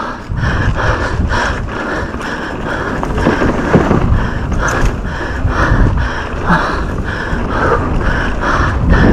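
Mountain bike descending a rough downhill race course: continuous wind buffeting and rattling rumble of the tyres and bike over the ground, pulsing quickly and unevenly, with a few short falling grunts or hard breaths from the rider.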